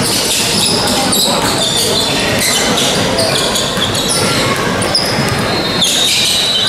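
Basketball dribbled on a hardwood gym floor, with rubber sneaker soles squeaking as players shift, over echoing voices in the hall.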